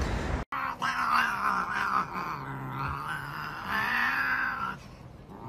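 Two grey cats fighting, one letting out a long, low yowl that lasts about four seconds and dies down near the end.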